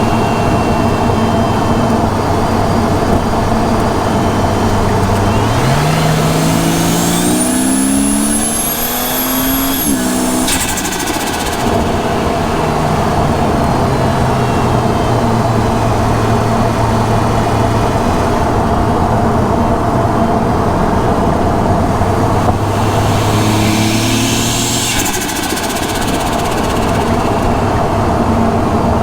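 Ford Falcon G6E Turbo's turbocharged 4.0-litre Barra inline-six heard from the engine bay: a steady engine note, then the revs climb with a rising turbo whistle that cuts off suddenly about ten seconds in as the throttle closes and the turbo flutters. Near the end a shorter rev climb with turbo whistle ends the same way.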